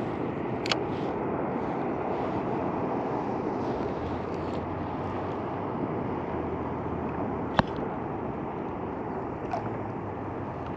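Steady rushing of wind and water around a kayak on the sea, with a few sharp clicks; the loudest click comes about three-quarters of the way through.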